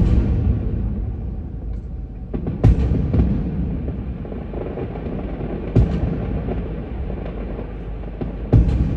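Aerial fireworks shells bursting with sharp booms, roughly every three seconds, over a steady low rumble.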